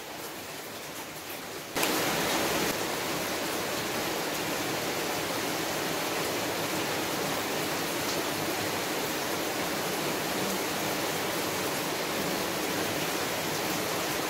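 Steady hiss of falling rain, which jumps up sharply in level about two seconds in and then holds even.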